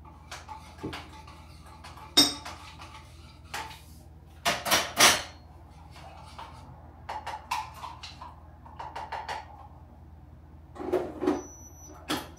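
Dishes and cups being handled and set down: a string of clinks and knocks, the sharpest about two seconds in, around five seconds and twice near the end.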